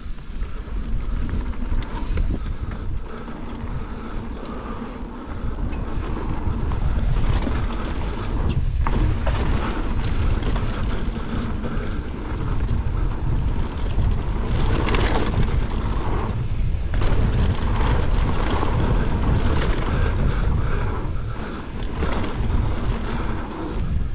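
Wind rumbling over the microphone and mountain bike tyres rolling fast over a dirt trail, with a few sharp knocks and rattles from bumps.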